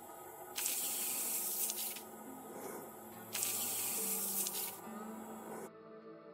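Two bursts of hissing, water-like rushing noise, each about a second and a half long, over soft background music with held notes.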